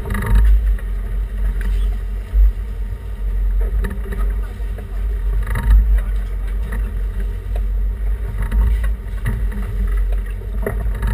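Steady low rumble of a sportfishing boat under way, its engines and the sea against the hull, with wind buffeting the microphone and a couple of brief louder bumps.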